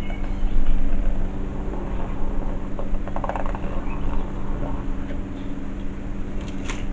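Steady low hum over background noise, with a short run of small clicks about three seconds in and faint bird chirps.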